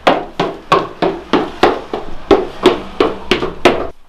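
Hurried footsteps pounding up a flight of stairs, about three heavy thuds a second, stopping just before the end.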